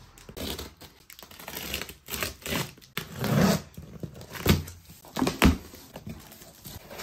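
A utility knife slitting packing tape on a cardboard box, then the cardboard flaps being pulled open with tearing, scraping and rustling, and two knocks of cardboard about four and a half and five and a half seconds in.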